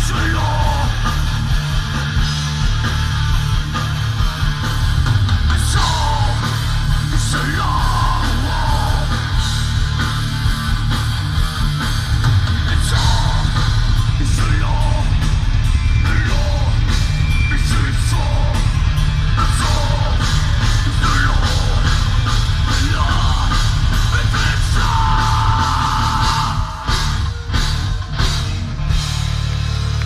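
Live thrash metal band playing loud, with distorted electric guitar and bass and pounding drums, and shouted vocals over the top; the loudness dips briefly near the end.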